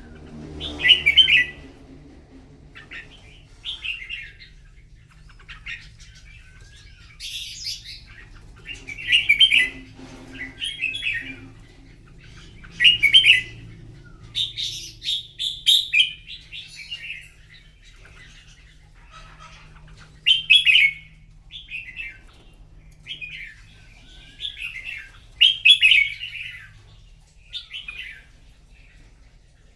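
Red-whiskered bulbuls in competitive duel song: short, loud whistled phrases repeated every second or two, with brief pauses between.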